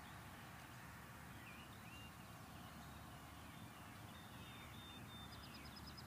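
Near silence: faint outdoor ambience with a low rumble and distant birds chirping, a quick run of chirps near the end. This quiet background reads about 43 decibels on a sound level meter.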